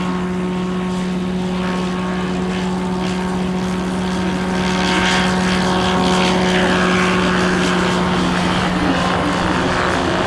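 Single-engine ultralight propeller plane taking off: the engine and propeller drone holds one steady pitch at takeoff power. It grows louder about halfway through as the plane lifts off and passes close, then climbs away.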